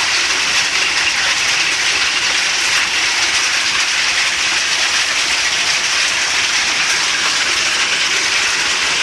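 Hailstorm with heavy rain: a steady, dense hiss of hailstones and rain pelting down without a break.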